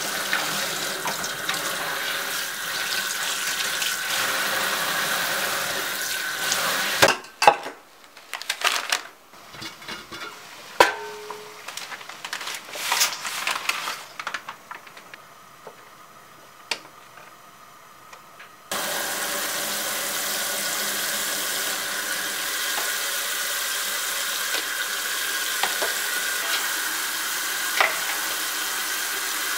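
Kitchen tap water running into a stainless steel sink, stopping about seven seconds in. A quieter stretch of scattered clicks and knocks follows. Then, from about two-thirds of the way in, the tap runs steadily again onto cooked noodles in a metal bowl to rinse them.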